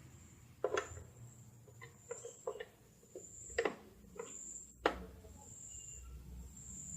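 Scattered light clicks and taps of hand-tool work on a scooter's plastic handlebar cover, the sharpest about five seconds in. A cricket chirps steadily once a second or so in the background.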